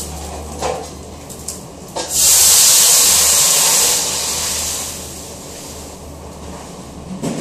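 A few short crackles of papery garlic skin being peeled with long fingernails. About two seconds in, a loud hiss starts suddenly and fades away over the next few seconds, over a steady low hum.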